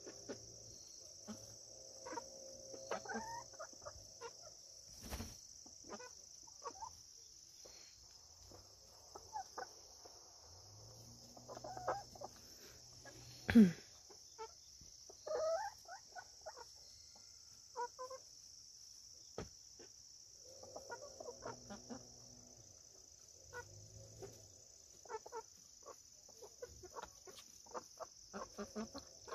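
Backyard chickens clucking softly now and then while they peck at a tomato, with scattered pecking clicks and one sharper knock about halfway through. A steady high insect trill runs underneath.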